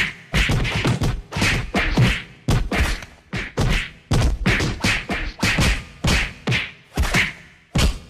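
Fight sound effects: a fast string of punch and body-hit impacts, whacks and thuds about three a second, stopping shortly before the end.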